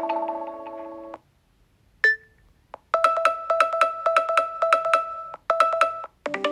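Nokia 6.1 alarm tones previewed one after another on the phone's speaker. A chiming mallet-like melody fades out in the first second, a short blip follows, then a fast repeating beep on two pitches starts, breaks off briefly and restarts, and a new chiming tone begins near the end.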